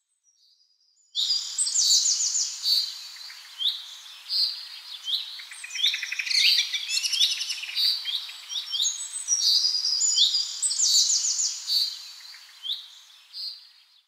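Several songbirds chirping and singing together, a dense run of quick high chirps and trills that starts about a second in and thins out near the end.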